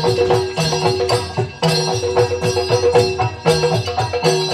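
Yakshagana background ensemble playing: hand drums beat a fast, even rhythm with jingling metal percussion, over a steady drone.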